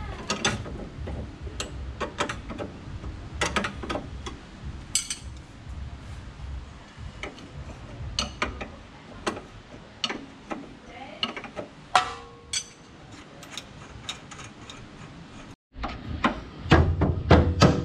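Ratcheting ring spanner clicking irregularly as the rear shock absorber's lower mounting bolt is undone by hand, with metal-on-metal clinks from the tool. Louder knocks and clinks come near the end.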